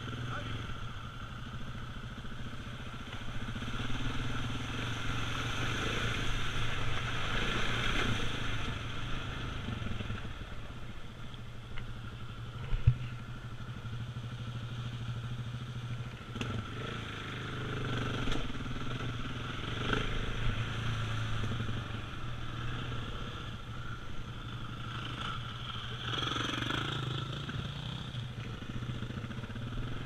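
KTM 690's single-cylinder four-stroke engine running under way, its note swelling and easing with the throttle, with one sharp knock about halfway through.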